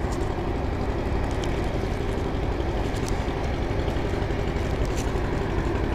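A motor running steadily with a low rumble, with a few faint ticks over it.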